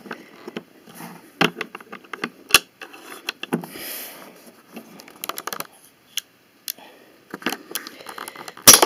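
Plastic Lego pieces clicking and rattling as they are handled and set down on a wooden table, with a single sharp, loud snap near the end as the rubber-band Lego launcher fires.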